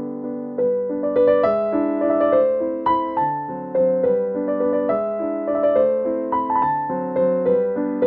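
Background music: a gentle piano melody, its notes struck one after another and fading over lower chords.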